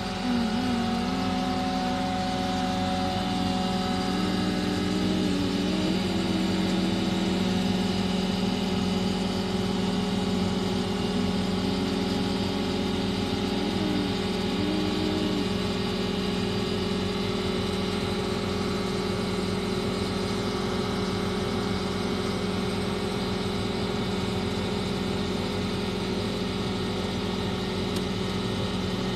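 Sany STC800 truck crane's diesel engine running steadily, heard from inside the operator's cab while the crane hoists a load. A higher whine over the engine wavers up and down in pitch through about the first half, then the sound settles into an even hum.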